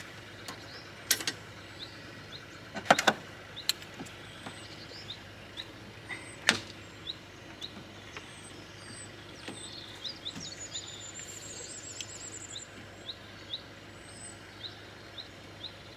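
Sharp metallic clicks and knocks as a caravan's tow hitch coupling and electrical plug are connected to a car's tow bar, the loudest about three and six and a half seconds in. A bird chirps repeatedly throughout, with a high trill about eleven seconds in.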